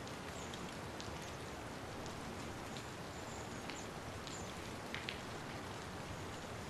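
Steady rain falling, an even hiss with a few scattered sharp ticks of single drops striking close by.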